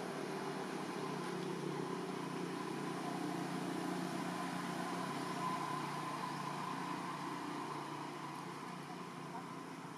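A distant engine running steadily with a low hum, growing a little louder toward the middle and easing off near the end.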